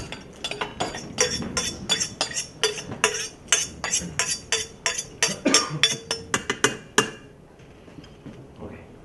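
Metal utensil clinking and scraping against a stainless-steel saucepan and blender jug as ingredients are scooped and tipped into the jug: a quick run of ringing clinks, about four a second, that stops about seven seconds in.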